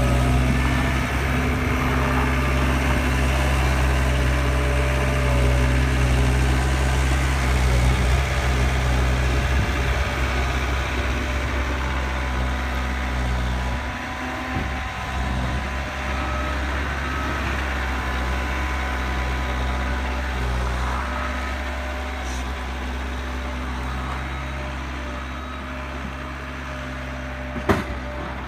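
Caterpillar skid-steer loader's diesel engine running steadily while plowing snow, a little quieter from about halfway through. A single sharp knock near the end.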